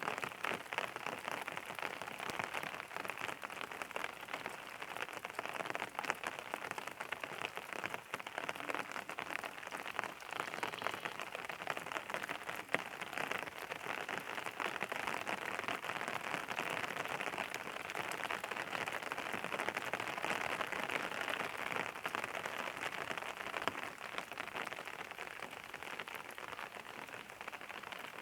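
Steady rain falling on a surface, a continuous patter of many fine drops with no break.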